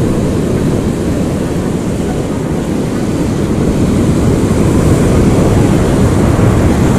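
Wind buffeting an action camera's microphone, a loud steady rumble, over the wash of surf breaking on the rocks.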